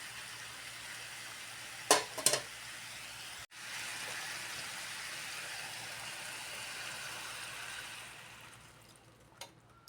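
Food sizzling in a frying pan, a steady hiss, with a few sharp knocks about two seconds in; the sizzle breaks off for an instant, comes back, then dies down near the end.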